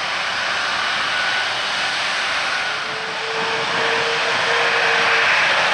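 Jet engines of an Airbus A330-243 running: a steady, loud rushing roar. A humming tone joins in about halfway through, as the sound grows slightly louder.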